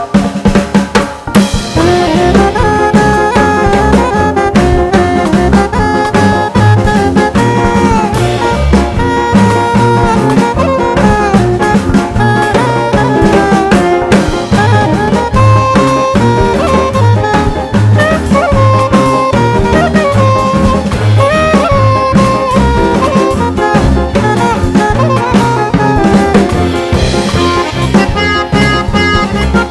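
Background music: an upbeat tune with a melody over a steady drum-kit beat.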